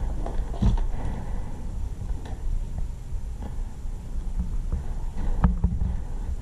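Steady low rumble with a few scattered sharp clicks and knocks, about four in all, the loudest about five and a half seconds in.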